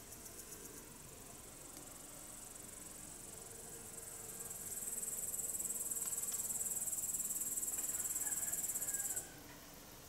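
A stridulating insect in the grass: a high, finely pulsed buzzing trill that swells about halfway through, holds loudest for about four seconds, then stops abruptly near the end.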